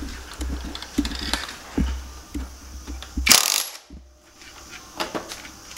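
NRT TX-30DC cordless brushless impact wrench running on a motorcycle's front axle nut to undo it, its hammer mechanism rattling with a steady hum for about three seconds. A short, louder burst follows a little past three seconds in, then a few separate clicks.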